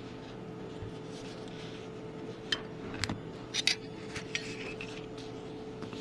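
Light metallic clicks and clinks, about six of them close together in the middle, over a steady hum: metal parts of a Keihin CVK carburetor being handled and worked.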